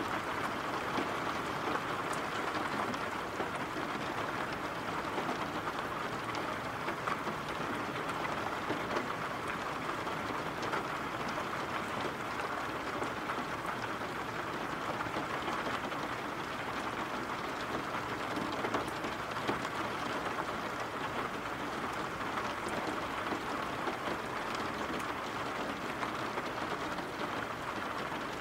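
Steady rain falling, an even wash of noise with the odd sharper drop ticking through it.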